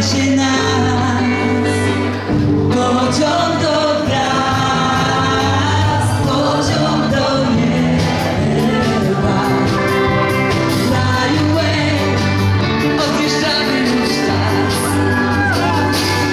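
Upbeat dance song with singing over a steady beat and strong bass, played loud.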